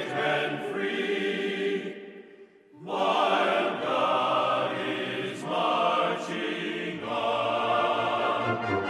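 Choral music with many voices. It breaks off to near silence for about a second, two seconds in, then resumes, and deep bass notes join near the end.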